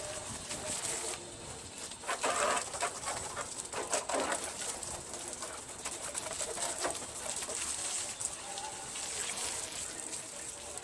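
Doves cooing in the background, with two short rushes of noise about two and four seconds in.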